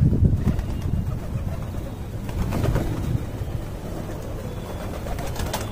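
A flock of domestic pigeons cooing, with a flurry of wing flaps that is loudest in the first half-second and then eases off.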